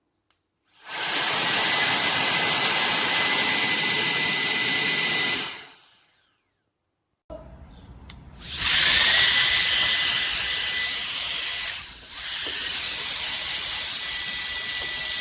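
Cordless electric air duster's fan running in two bursts, each a loud rush of air with a steady high whine. The first cuts off about six seconds in; the second spins up with a rising whine about two seconds later and runs on.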